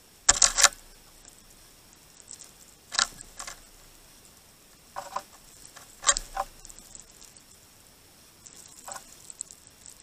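Great tits pecking and hopping on a snow-covered feeder of seed and frozen apple: a quick cluster of sharp taps in the first second, then shorter bursts of tapping and scuffing every second or two.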